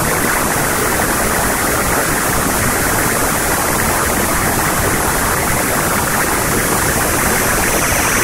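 Loud, steady static-like noise, an even hiss with no tone or rhythm.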